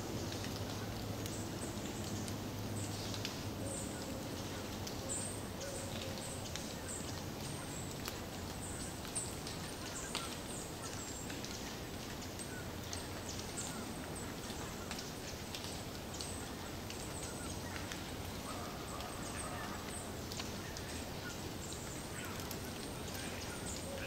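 Forest ambience: a steady background hiss with many short, scattered bird chirps and clicks.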